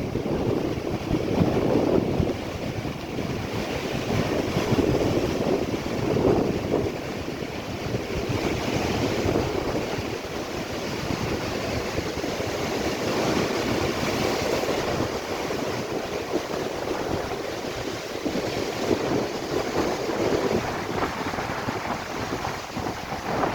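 Black Sea waves breaking and washing on the shore in surges every few seconds, with wind buffeting the microphone.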